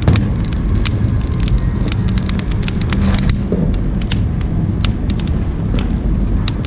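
Split firewood burning in a wood stove: irregular sharp crackles and pops over a steady low rumble of the flames, as a freshly added log catches.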